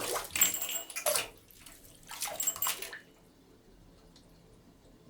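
Water from a bathtub being emptied, coming in a few loud irregular rushes and stopping about three seconds in, after which only a faint background remains.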